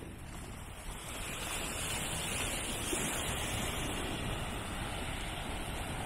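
Wind buffeting the microphone over the wash of shallow sea water lapping at the shore, growing louder about a second in.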